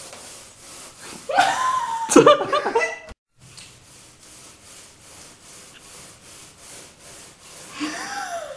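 A young woman laughs in short bursts for about two seconds. After a brief cut comes a soft, repeated rubbing, a rubber balloon being rubbed against hair, and a short falling vocal sound near the end.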